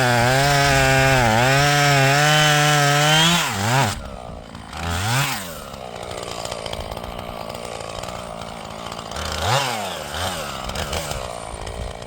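Two-stroke chainsaw running at full throttle in a cut, its pitch wavering and dipping under load, then dropping to idle about three and a half seconds in, with two short throttle blips later.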